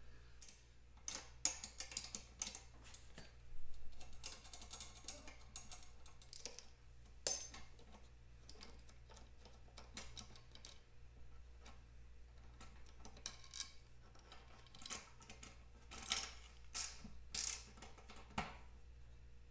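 Metallic clicks, rattles and short scrapes of hand work on a Vincent Girdraulic front fork spring box as the clamp of a spring-compressing jig is undone. One sharp click about seven seconds in is the loudest, and there is a run of clicks near the end.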